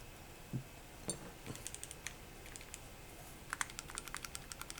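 Keys of an Akko M3W aluminium mechanical keyboard being pressed, making faint sharp keystroke clicks: a few scattered ones in the first couple of seconds, then a quicker run near the end. To the owner the keys sound weird.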